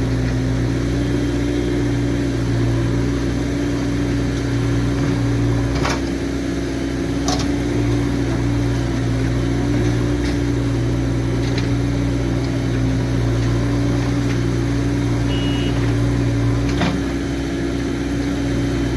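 Diesel engine of a JCB 3DX backhoe loader running steadily under work, with a few sharp metallic knocks scattered through it.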